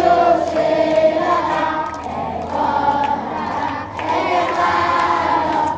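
A large group of schoolchildren singing together in chorus, with many young voices on long held notes and short breaks between phrases about two and four seconds in.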